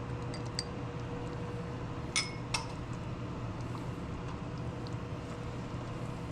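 A utensil clinking against a cooking pot: a few light clinks, then two sharper ones about two seconds in. A steady hum runs underneath.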